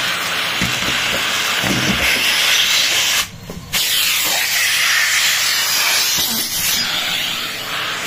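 Numatic Henry canister vacuum cleaner running, a steady rushing suction hiss through its hose nozzle. The hiss drops sharply for about half a second a little after three seconds in, then comes back at full strength.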